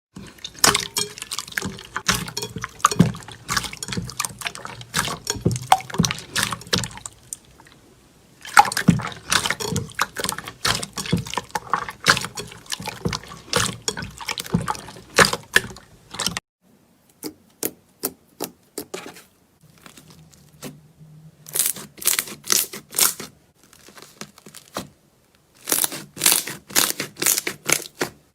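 Slime being squeezed and pressed by hand: dense runs of wet squelching pops and clicks, broken by short pauses, with sparser pops in the middle.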